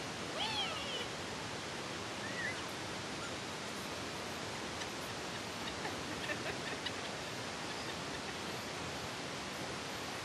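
A pet bird giving short calls that bend up and down in pitch: a louder one near the start and a smaller chirp about two and a half seconds in, then a few faint ticks, over a steady hiss.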